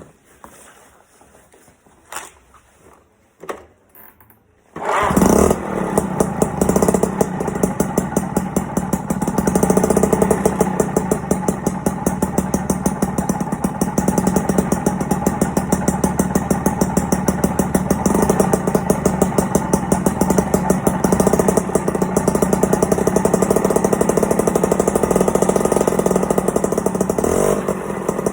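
Piaggio Ciao moped's 49 cc two-stroke single with a Simonini aftermarket exhaust, starting abruptly about five seconds in after a few faint clicks, then running steadily with a rapid pulsing exhaust note.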